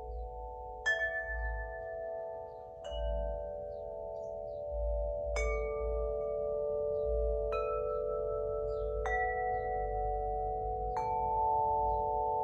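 A wind chime, the Spring Wind Chime tuned to the Wood element, is struck six times at about two-second intervals. Each strike adds bright ringing tones over a sustained, overlapping shimmer of earlier notes.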